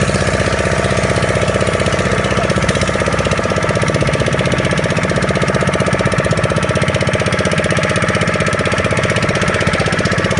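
Small boat engine running steadily at close range, a fast, even mechanical beat with no change in speed.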